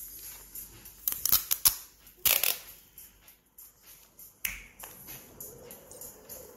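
Clear sticky tape pulled off its roll and wrapped around plastic drinking straws: a few sharp clicks about a second in, then short ripping sounds, the loudest a little after two seconds and another past four seconds.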